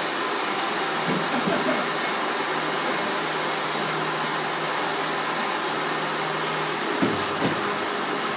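Steady rushing noise with a low hum, over which come a few dull thumps of kicks and bodies landing on the training mats. The loudest thump comes about seven seconds in.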